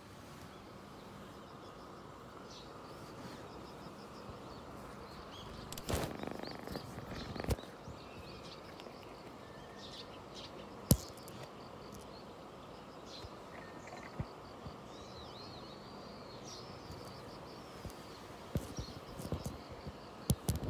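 A cat rubbing and bumping against the phone, giving a few sharp knocks and brushes, the loudest about halfway through and several more near the end. Behind them is a faint outdoor background through an open window, with scattered bird chirps.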